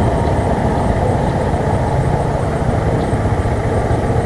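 Steady low rumble of a motorcycle on the move: engine noise mixed with wind buffeting the rider's camera microphone.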